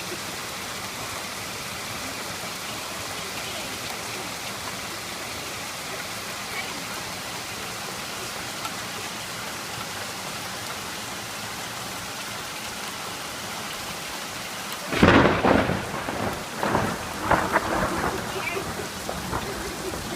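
Heavy rain falling steadily, then about fifteen seconds in a sudden loud clap of thunder, followed by a few more rumbling peaks that die away.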